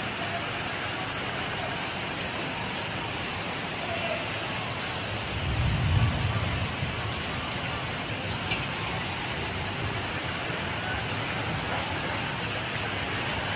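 Heavy rain falling steadily as an even hiss, with a low rumble swelling briefly about six seconds in.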